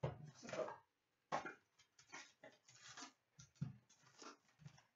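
A box of hockey cards being opened by hand and its foil packs taken out: an irregular run of short rustles, crinkles and light taps of cardboard and wrappers.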